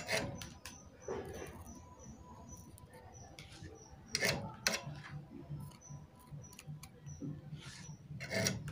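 Scattered sharp clicks and rubbing from a small circuit board and its wires being handled and turned in the fingers, with a low pulsing hum starting about two-thirds of the way in.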